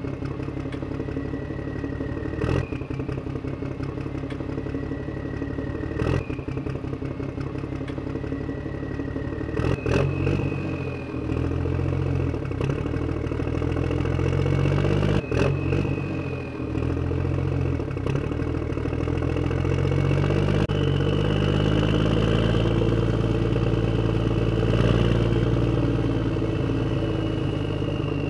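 Small electric motor and gears of a homemade toy tractor running under load, a whine over a clattering drone, broken by a few sharp clicks; the drone grows louder about a third of the way in.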